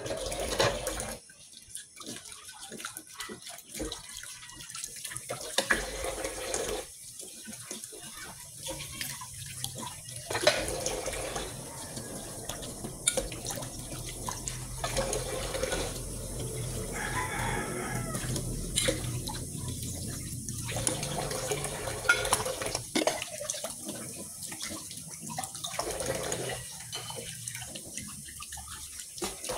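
Kitchen tap running into a stainless-steel sink while dishes are rinsed under it. The splashing changes and breaks off briefly several times as dishes pass through the stream, with a few sharp clinks of dishes.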